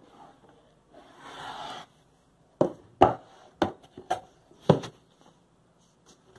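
Cardboard box being opened by hand: a sliding scrape of the lid about a second in, then a run of about six sharp cardboard knocks and taps as the lid and an inner flap are swung open, with a few faint ticks near the end.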